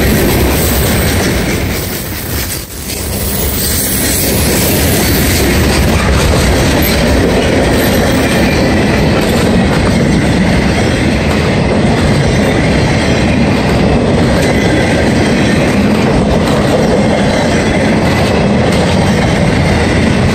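Freight train's hopper cars and flatcars rolling past: a steady loud rumble and clatter of steel wheels on the rails, dipping briefly about two and a half seconds in.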